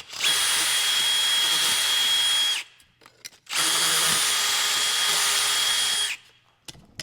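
A small power-tool motor running at full speed in two bursts of about two and a half seconds each, with a steady high whine that drops away as each burst ends.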